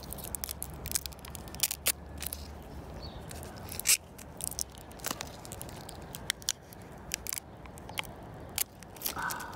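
Thin clear protective plastic film being peeled off a plastic earbud charging case, crackling with irregular sharp clicks and a few louder snaps.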